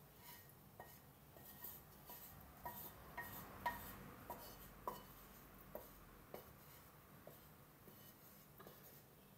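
Light taps and scrapes of a utensil against a frying pan as fried onions are scraped out into a bowl, a few of the taps ringing briefly.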